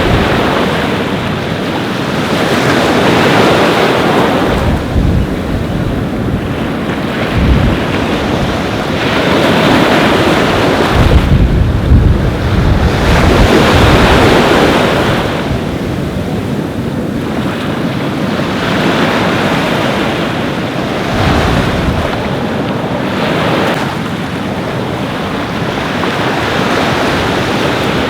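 Ocean waves breaking and washing up a beach, the surf swelling and ebbing every few seconds, with wind buffeting the microphone in low rumbling gusts.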